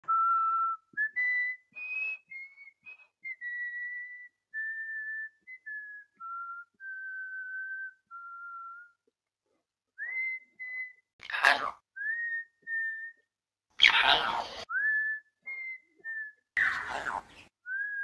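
Red-lored Amazon parrot whistling a slow tune of clear, held notes with short rising slides. In the second half the whistles are broken by three loud, harsh squawks.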